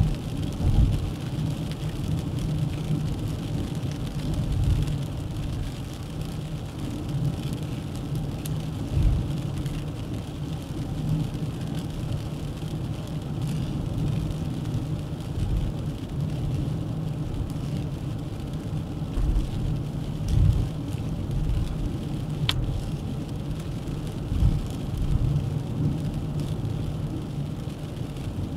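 Dacia Duster 1.3 TCe 4x4 driving along at road speed: a steady low engine and road rumble that swells briefly every few seconds. One sharp tick about two-thirds of the way through.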